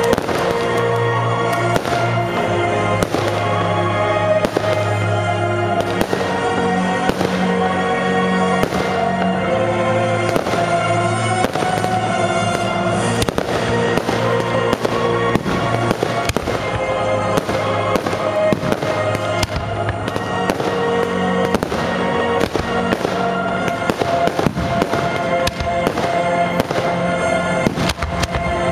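Aerial fireworks shells bursting one after another, many sharp bangs, often several a second, over music with sustained notes.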